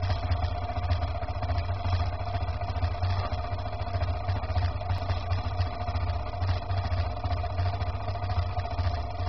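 Vehicle engine idling steadily, with a low, rapidly pulsing throb.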